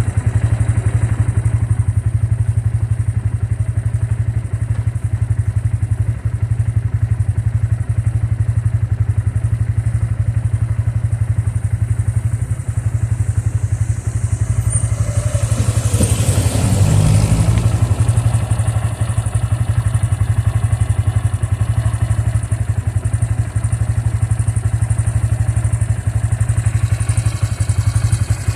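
Bajaj motorcycle engine idling steadily, carrying a strange noise that the owner noticed after the engine was opened up for repair. About halfway through there is a brief louder noisy swell lasting a couple of seconds.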